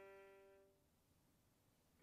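Solo violin's last held low note dying away within the first second, then near silence.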